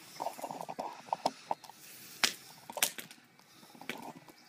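Willow-wood fire crackling and popping: a quick run of small crackles in the first second and a half, then a few sharper, louder pops at irregular intervals.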